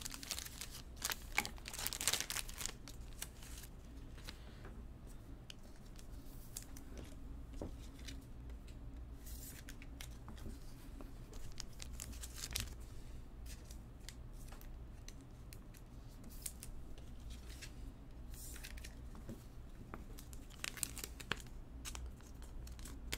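Scattered crinkling and rustling of foil trading-card pack wrappers being handled, in short irregular bursts over a steady low hum.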